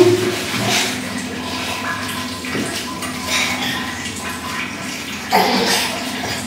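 Water running and splashing in a small bathroom as a toddler's face is washed by hand, with a brief louder sound about five seconds in.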